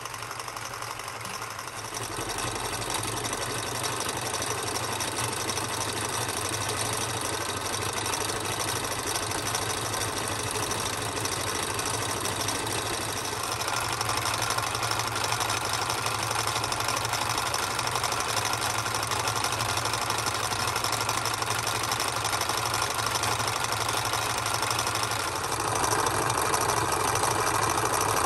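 Antique Krauss, Mohr & Co. toy hot air engine (c. 1899) running steadily with a fast mechanical clatter, driving a tin toy windmill by a belt. The sound grows louder in steps about two seconds in, near the middle and near the end.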